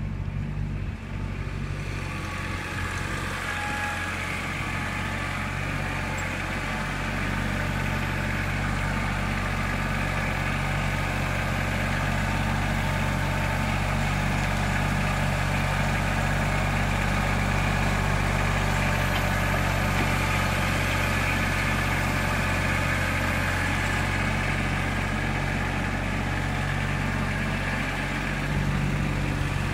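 Compact tractor engine running steadily as the tractor drives up on pallet forks and lifts a loaded pallet. Its note grows louder over the first several seconds as it comes close.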